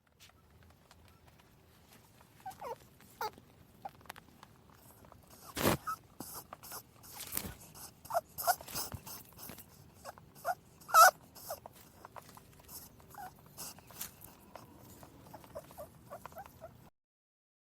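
Rabbit making short, scattered squeaks amid small clicks and rustling, with a couple of sharper knocks about six and eleven seconds in.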